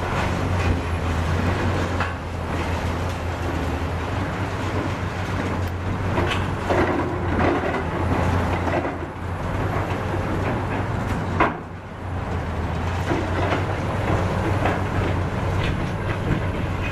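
Caterpillar high-reach demolition excavators running, a steady low diesel drone, while concrete is broken from the tower and debris clatters and crunches down. A single sharp crack stands out about two-thirds of the way through.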